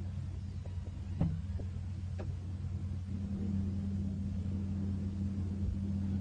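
Steady low rumble, with a couple of faint clicks about one and two seconds in.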